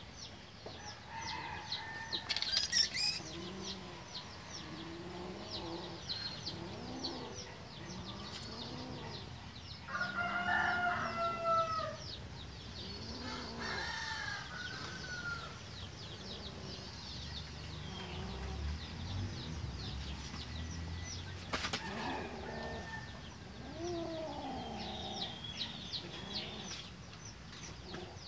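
Chickens clucking in short repeated low notes, with rapid high-pitched chirping throughout and a few longer, louder calls around the middle.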